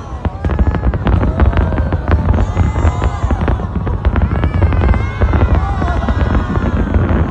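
A barrage of fireworks: dense, rapid bangs and crackles over a heavy low rumble, with whistling tones gliding up and down in pitch among them.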